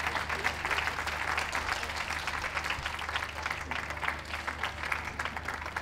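Audience applauding, thinning out toward the end.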